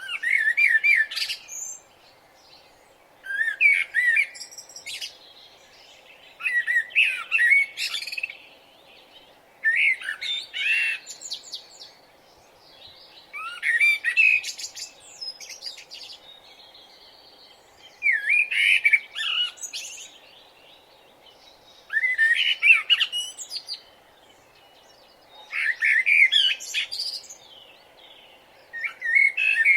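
A songbird singing short warbled chirping phrases, about one every three to four seconds, over a faint steady background hiss.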